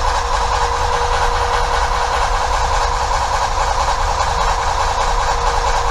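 Steady machine drone with a constant hum in it, running evenly throughout.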